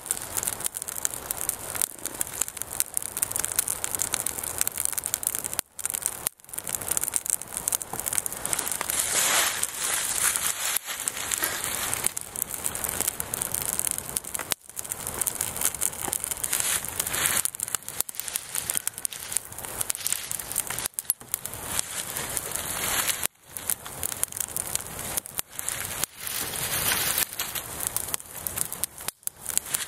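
Small twig fire crackling and popping steadily as the kindling catches and the flames grow. It drops out for a moment a few times.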